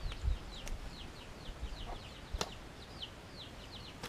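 Small birds cheeping: a steady run of short, high chirps, each falling in pitch, several a second. Two sharp clicks come through, one near the start and one about halfway.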